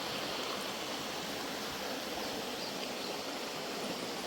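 River water flowing, a steady rushing.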